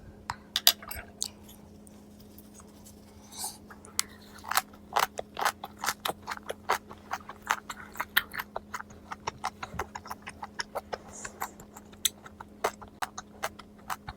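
Close-miked chewing of sliced raw flounder: a few wet mouth clicks, then from about four and a half seconds in a steady run of quick, sharp chewing clicks.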